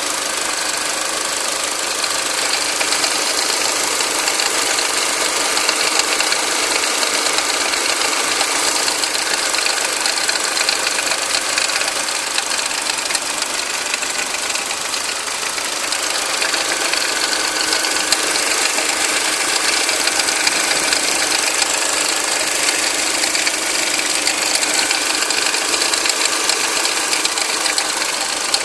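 Turbocharged engine of a 2000 Volvo S40 2.0T running at a steady level, with faint tones that grow and fade. This is the strange noise that comes and goes, and the owner cannot place it, since the engine otherwise runs well.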